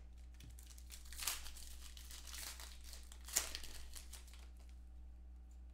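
Clear plastic wrapping crinkling and rustling in the hands while a trading card is handled, with a sharp crackle about three and a half seconds in.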